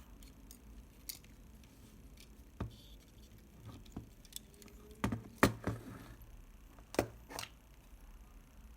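Scattered small metallic clicks and taps from handling a Nikon FM2 camera and small tools during a repair. The loudest click comes about five and a half seconds in, and there is a cluster of several clicks between five and seven and a half seconds.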